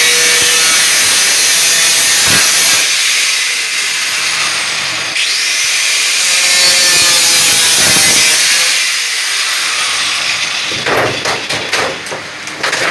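Angle grinder cutting through aluminium sheet siding: a loud, high, hissing grind. About five seconds in it dips and spins back up. Near the end the grinding stops and gives way to irregular knocks and clatter.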